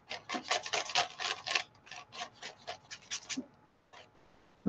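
Flat paintbrush scrubbed quickly back and forth over paper, about six short scratchy strokes a second, stopping about three and a half seconds in.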